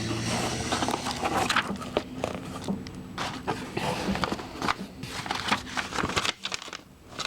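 A subscription box and its packaging being handled: irregular rustling and crinkling with light knocks and clicks, quieter about six seconds in.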